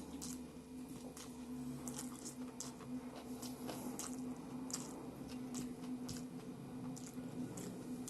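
A person chewing and biting a mouthful of rice, greens and buffalo meat, with frequent short wet smacks and clicks of the mouth. A steady low hum runs underneath.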